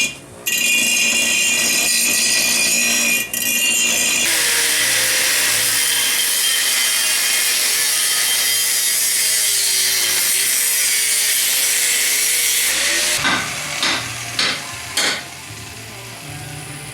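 Angle grinder working steel: a steady high whine with a couple of brief dips for the first four seconds, then a harsher hiss as it bears into the metal for about nine seconds. A few sharp knocks follow near the end as the level drops.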